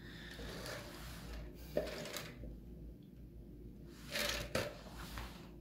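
Quiet room tone with small handling noises: a soft click about two seconds in and a short swish a little after four seconds.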